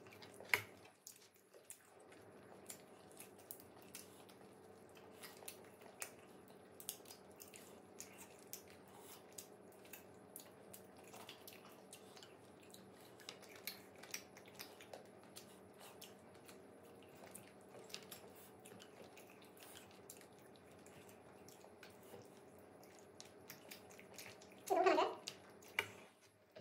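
Quiet eating sounds: small clicks and taps of chopsticks and fingers picking grilled fish off a wire grill rack, with chewing, over a faint steady hum. A brief murmur of a voice near the end.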